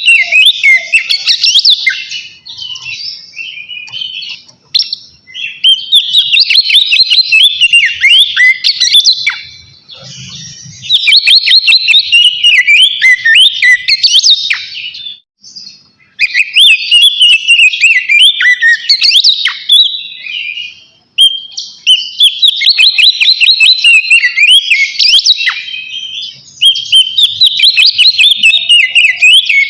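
Oriental magpie-robin (kacer) singing loudly in full song. It gives about six bursts of rapid, varied whistled notes, each lasting several seconds, with short pauses between them.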